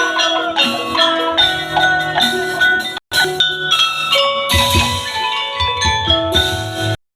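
Tongklek music: fast, interlocking mallet-struck pitched percussion over low drum notes, which come in about a second in and again past the middle. The music breaks off for an instant twice, about three seconds in and just before the end.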